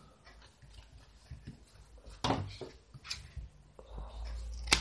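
Scissors cutting through the black tape wrapped around a battery pack, with rustling as the pack is handled; a few sharp snips, the sharpest near the end.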